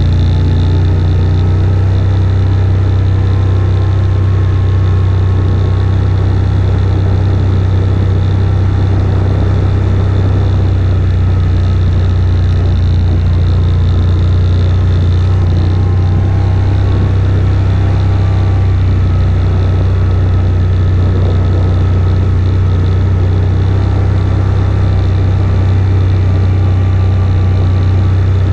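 AODES 1000 quad bike's V-twin engine running at a steady, unchanging pitch while the quad is ridden slowly.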